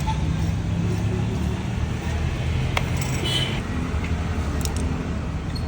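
Bajaj Pulsar motorcycle's single-cylinder engine idling steadily, with a sharp click a little under three seconds in and a short high jingle just after.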